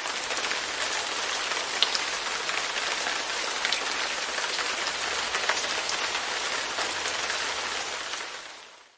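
Light rain falling steadily on a window pane: a dense hiss of rain with scattered sharper drop taps. It fades out near the end.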